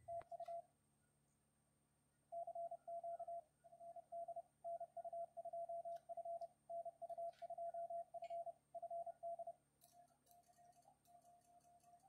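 Morse code tones at about 700 Hz from a ham radio transceiver: another station calling "CQ FD NU2F" in steady on-off keying. About ten seconds in, a fainter tone starts sending the operator's own call sign, with the light clicking of a paddle key.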